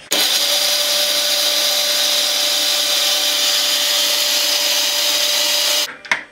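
Countertop blender motor running steadily, emulsifying egg white, garlic and lime juice as oil is poured in slowly, turning it into a thick garlic sauce. It cuts off near the end, followed by a few clicks.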